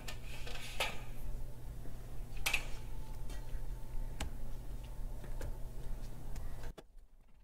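A few sharp computer mouse clicks, spread a second or more apart, over a steady low electrical hum; the hum cuts out abruptly near the end.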